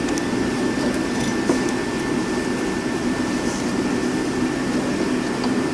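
Steady machine hum in the background, with a few faint clicks of plastic parts as a mass air flow sensor is fitted into the air filter housing and intake hose.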